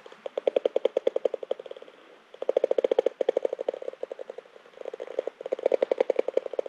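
A DIY bat detector turns a bat's echolocation calls into audible rapid clicking, about a dozen clicks a second. The clicking comes in three swelling bursts as the bat passes a few meters overhead.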